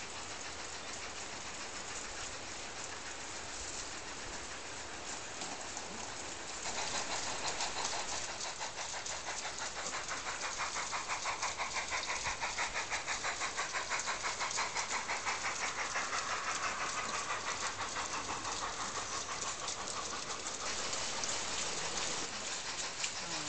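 Large-scale garden-railway model freight train running along the track. It gets louder about seven seconds in as the locomotive and wagons come close, with a fast, even rhythmic beat.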